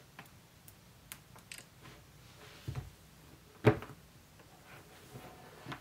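Small taps and clicks of an iPad in a folio case being handled, then a low double knock and, a second later, one sharper thud as the cased tablet is laid flat on the desk.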